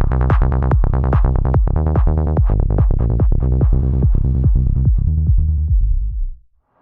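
Electronic dance music, trance-like, with fast, evenly pulsing chords over a heavy bass. It fades out quickly about six seconds in.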